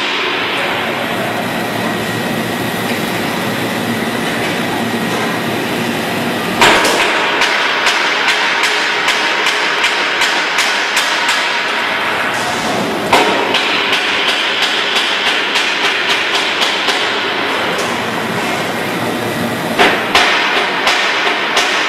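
An automatic ring welding machine runs with a steady hissing, crackling welding arc and rapid ticking. A sharp clack comes three times, about every six and a half seconds, as the machine cycles.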